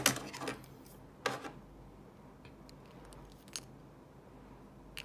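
Small plastic and metal Beyblade Burst parts clicking and clattering as they are handled and set down on a desk: a sharp clack at the start, another about a second later, then a faint tick.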